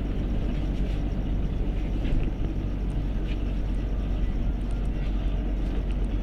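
LiAZ bus engine running while the bus drives, heard from inside the passenger cabin as a steady low rumble.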